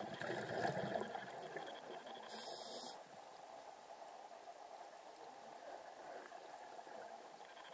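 Faint, muffled water noise recorded underwater, a little louder in the first couple of seconds, then settling to a steady low hiss.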